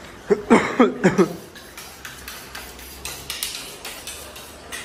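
A man's voice calls out for about a second, then a butcher's knife is stroked against a sharpening steel: about a dozen quick, sharp metallic strokes, two to four a second.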